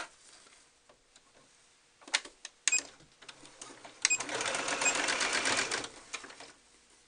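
Computerized sewing machine stitching in one fast, even run of about two seconds, beginning about four seconds in. It is sewing a straight stitch along the rolled neck edge of a stretch-knit leotard. A few sharp clicks come before the run.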